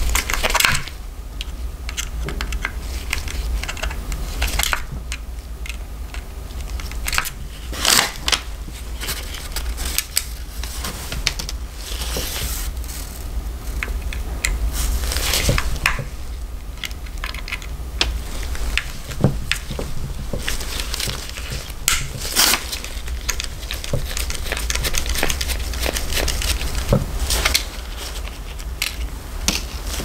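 Handling noise from gloved hands working on an opened vintage hair clipper's plastic housing and power cord: irregular clicks, taps and rustles, over a steady low hum.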